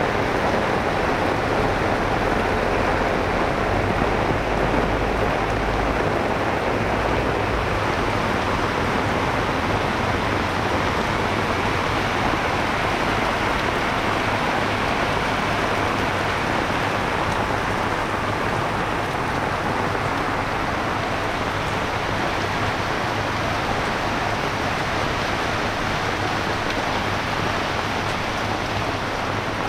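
Steady heavy rain falling, an even hiss without a break, with a low rumble under it for the first several seconds.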